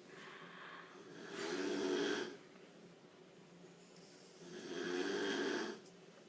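An elderly woman snoring: two snores, each a low rattling buzz lasting a little over a second, about three seconds apart, with quiet breathing between.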